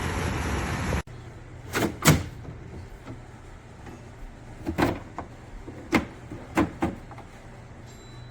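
Steady rushing air noise from a running portable air conditioner's fan, cutting off suddenly about a second in. After it, a faint low hum and a scattering of sharp knocks and clicks, about seven in all.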